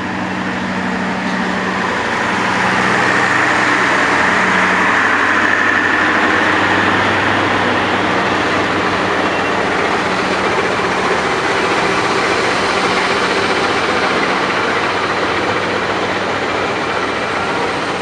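A CC201-class diesel-electric locomotive and its passenger coaches roll slowly past at close range during shunting. The locomotive's low, steady engine drone sits under the constant rumble and rush of wheels on the rails, which is loudest a few seconds in.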